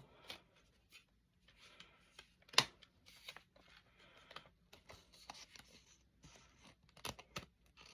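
Faint handling of CD and cassette cases and their packaging: scattered small clicks and rustles, with one sharper click about two and a half seconds in and two more near the end.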